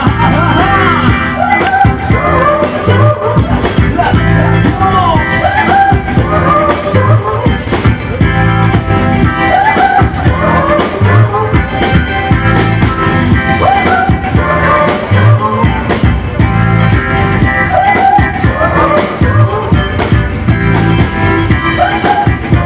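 Rock song with a steady drum beat, guitar and a singing voice.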